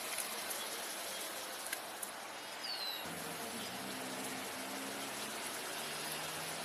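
Outdoor background noise: a steady hiss with a faint low hum that comes in about three seconds in, and a brief high chirp falling in pitch just before it.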